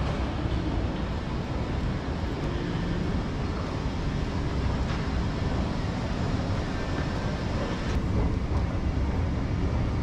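Steady low rumbling background noise of a large building interior, with no distinct events standing out.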